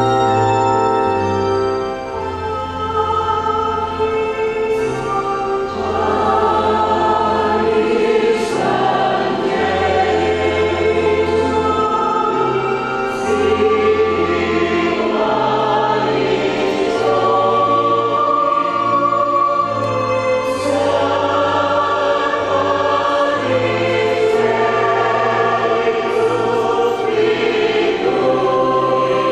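Church choir singing a hymn in several parts, accompanied by an organ holding long, steady bass notes.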